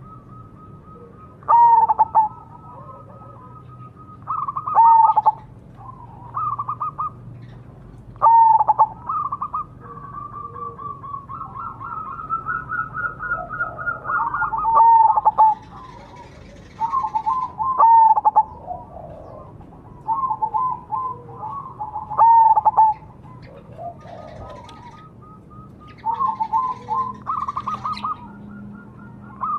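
Zebra dove (perkutut) singing: phrase after phrase of quick, staccato cooing notes, many phrases opening with a sharp falling note, a new phrase every two to four seconds.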